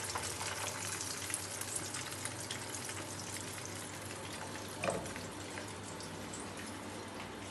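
Hot oil sizzling and crackling in a frying pan around a battered fish fillet at the end of frying, as the fillet is lifted out on a slotted skimmer. A short knock comes nearly five seconds in.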